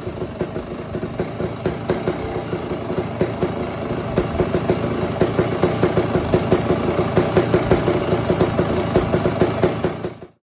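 2018 KTM 300 XCW's single-cylinder two-stroke engine with a freshly rebuilt top end, warmed up and running steadily with a rapid, even pulse. It gets a little louder about four seconds in, and the sound stops abruptly near the end.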